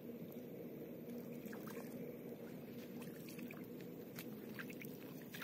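Hands digging and splashing in shallow muddy paddy water to turn up bait, with a handful of small splashes and squelches, over a steady low hum.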